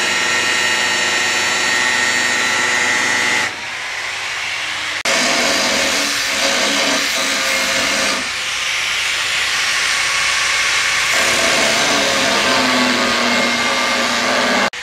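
Handheld angle grinder with a thin cutoff disc cutting through sheet metal: a loud, steady whine and hiss of the disc biting into the metal. It dips sharply about three and a half seconds in and comes back about a second and a half later.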